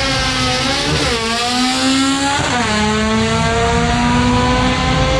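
A car engine at full throttle on a drag run. It climbs steadily in pitch and drops back sharply twice as it shifts up, about one second and two and a half seconds in, then keeps climbing.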